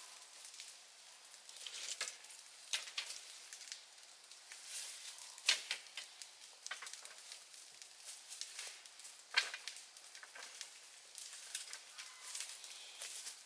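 Dry twigs and leaves crackling and snapping irregularly, with soft rustles between and two sharper snaps, about midway and about two-thirds of the way in.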